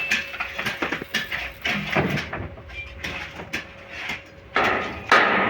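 Irregular knocks and taps from hand work with tools on building materials, louder near the end.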